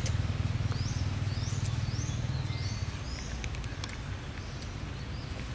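Outdoor ambience: a steady low rumble with a run of short, high-pitched rising chirps repeating about twice a second, fading out past the middle.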